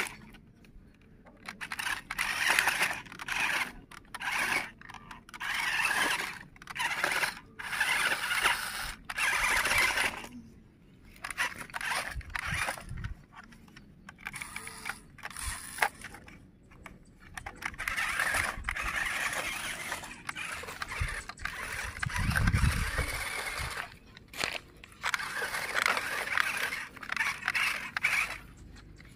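Small electric motor and gearbox of an RC 4x4 rock crawler whirring in repeated short throttle bursts, its tyres scrabbling and scraping over loose rocks and rubble.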